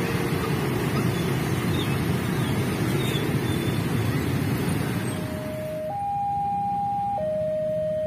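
Dense motorcycle traffic running over a level crossing for about five seconds, then a railway level-crossing warning alarm sounding two alternating steady tones, high and low, each held a little over a second.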